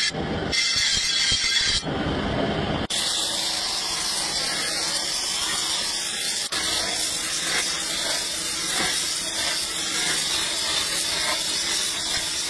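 A gas torch flame hissing steadily as it heats a steel scythe blade red-hot. It is preceded, for about the first three seconds, by short abruptly cut snatches of steel being ground on a spinning grinding wheel.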